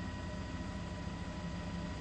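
Steady low drone of a helicopter's engine and rotors, with thin steady high whines over it.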